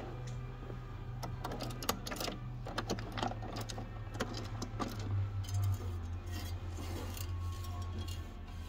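A quick run of metallic clicks and clinks, densest in the first half, from a bulk vending machine being handled, over a steady low hum.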